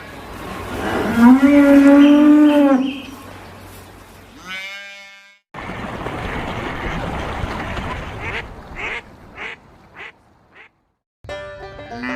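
Cow mooing: one long call about a second in, rising, held and falling, followed by a shorter call near five seconds. Later comes a noisy stretch with several short, sharp calls.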